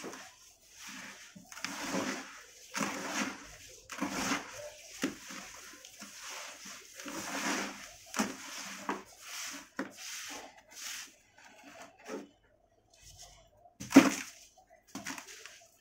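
Hands squishing and kneading gritty sand and cement powder into water in a plastic tub, in irregular wet, grainy strokes. One sharp, much louder smack comes near the end.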